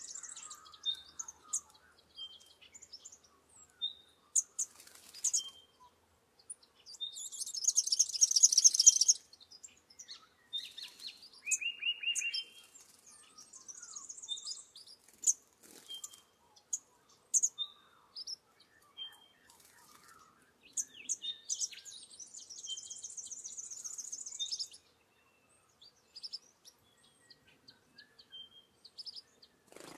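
Several birds calling: short high chips repeated throughout, and two spells of loud, rapid high-pitched chattering, one about seven seconds in and another from about 21 seconds. A brief series of lower notes sounds near the middle.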